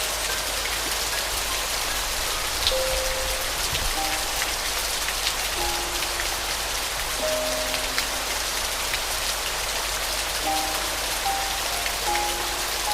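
Steady rain falling, with scattered drop ticks, under a soft, slow piano melody of sparse single notes.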